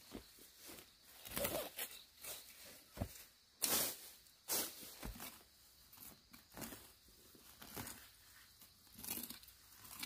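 Weeds being pulled up by gloved hands: irregular ripping and rustling of stems and leaves, with louder tears about three and a half and four and a half seconds in.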